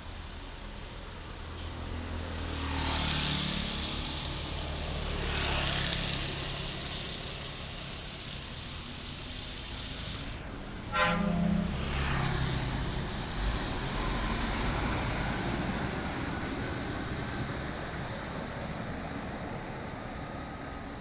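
Road traffic: vehicles passing close by, two swelling past in the first six seconds, with one short horn toot about eleven seconds in and traffic rumble continuing after it.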